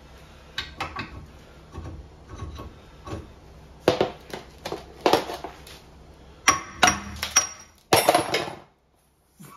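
Steel parts of a wheel-bearing puller tool and the old rear wheel bearing clanking and clinking as they are taken off a van's rear hub and handled. The knocks are sharp and scattered, with a short metallic ring on some, and come more thickly in the second half.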